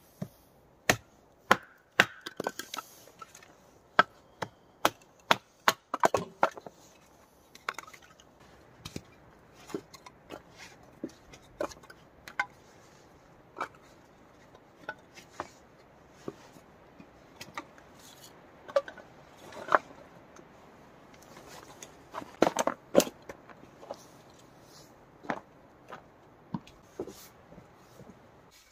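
Dry firewood being broken and chopped: irregular sharp cracks and knocks, some much louder than others, often less than a second apart.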